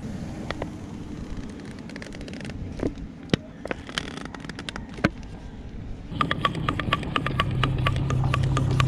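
Plastic bottle of tire sealant squeezed into a flat motorcycle tire's valve, with scattered crackles and clicks from the plastic. About six seconds in a fast, even rattle starts, joined a second later by a steady low hum.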